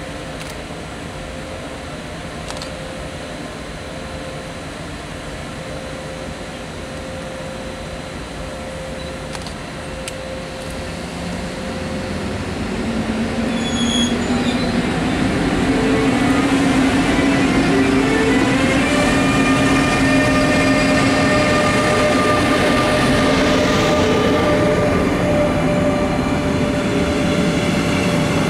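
Siemens Taurus electric locomotive (DB class 182) standing with a steady electrical hum, then pulling away about halfway through. Its traction converters sing as it accelerates, several tones rising and stepping in pitch while the sound grows louder, with the double-deck coaches rolling past on the rails near the end.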